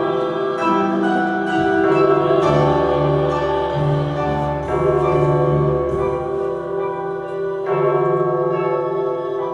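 Instrumental music: held chords that change every couple of seconds.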